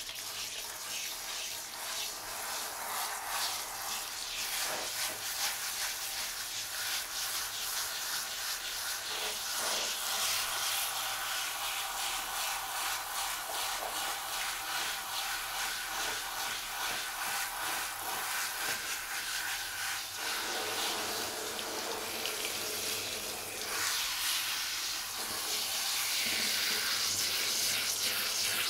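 Handheld shower head spraying water onto a cat's wet fur, a steady hiss of running water that grows a little louder near the end.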